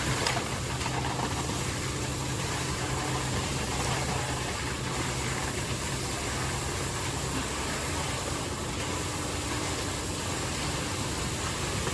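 An engine running steadily, with a low hum that drops away about seven seconds in.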